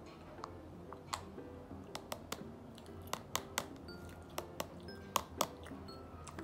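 A scatter of sharp, irregular clicks and taps from a metal fork stirring in a plastic cup, over soft background guitar music.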